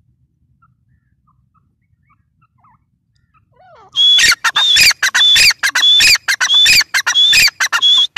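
Grey francolin calling. After about four seconds of near quiet with a few faint chirps, a loud, shrill call starts and repeats in quick phrases, each a high note followed by a fast run of sharp notes.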